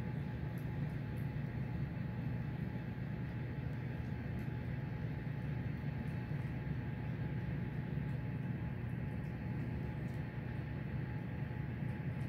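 Steady low mechanical hum of plant machinery, even throughout with a few faint steady tones above it, and a few faint ticks.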